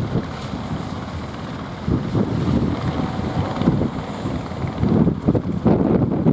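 Strong wind buffeting the microphone in irregular gusts, a loud low rumble.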